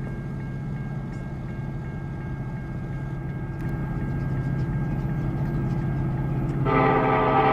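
Distant approaching diesel freight train with a steady low rumble; about a second before the end the lead EMD SD70ACe locomotive's air horn starts, a loud chord of several tones.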